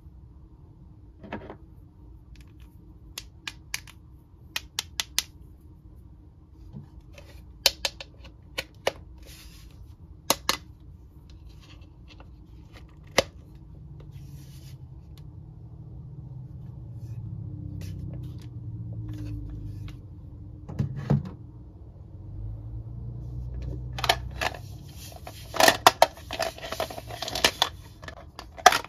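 Hard plastic Mr. Potato Head toy parts clicking and tapping as they are handled and pushed into the hollow plastic potato body, with a quick rattling run of clicks near the end.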